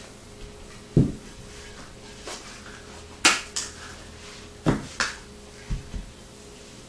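Axes being handled and set down on a blanket-covered wooden floor: a dull thump about a second in, a sharp click and a smaller knock a little past the middle, two more sharp knocks, then two soft thumps near the end.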